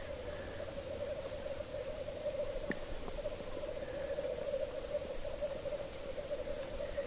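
Black grouse cocks at a lek giving their bubbling, cooing 'rookoo' display song, several birds running together into one unbroken chorus.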